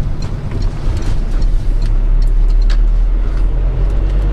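Car driving along a road, heard from inside: a steady low engine and tyre rumble, loudest around the middle, with a few light clicks.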